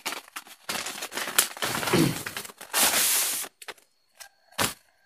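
Brown paper envelope and sheets of paper rustling and crackling as papers are pulled out by hand, in uneven bursts with one dense stretch about three seconds in, then a sharp tap near the end.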